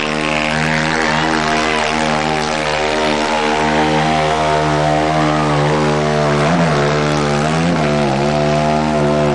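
Two-wheel-drive sport ATV engine held at high revs in a steady drone while it drags a weighted pulling sled, its pitch dipping briefly twice in the second half.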